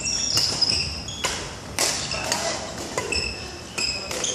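Badminton doubles rally: sharp racket hits on the shuttlecock several times, mixed with repeated short, high squeaks of court shoes on the wooden floor.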